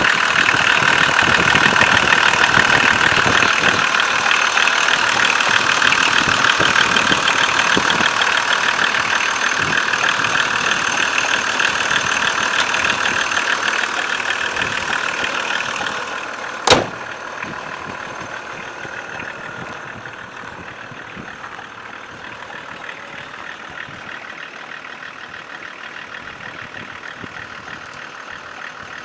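BMW M51 inline-six turbodiesel idling with a regular knock, which the owner says appears only once the engine warms up and whose cause he does not know. About 17 seconds in there is one sharp click, after which the engine sound is quieter and duller.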